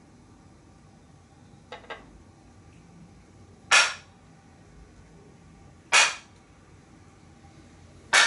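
Three sharp wooden claps about two seconds apart, each ringing briefly, after a faint double tap. Typical of a jukbi, the split-bamboo clapper, struck three times as the customary signal in a Seon meditation hall.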